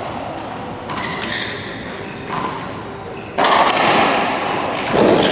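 Racquetball being struck and smacking off the court walls during a rally, two loud hits about three and a half and five seconds in, each ringing on in the enclosed court; softer knocks come before them.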